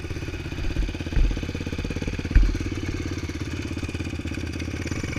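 Off-road race vehicle's engine running steadily at low speed with an even, fast putter, with a few low thumps, the sharpest about two and a half seconds in.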